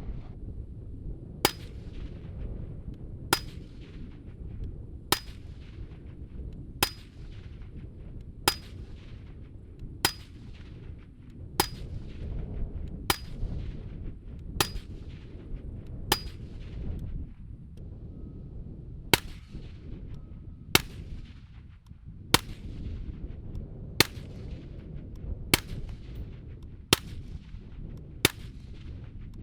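Suppressed shots from an LMT 10.5-inch 5.56 rifle with a Dead Air Nomad 30 suppressor, fired one at a time about every second and a half, with a short pause midway. Many shots are followed by a brief high ring, over steady low wind rumble.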